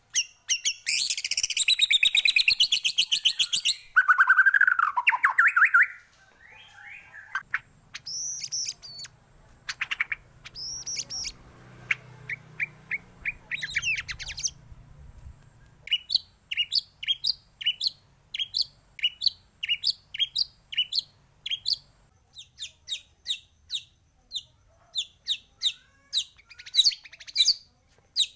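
Songbird singing: it opens with a loud, fast, buzzy trill, then a lower warbling phrase and scattered whistled notes. After about halfway it settles into a long run of short, sharp chirps repeated about two to three times a second.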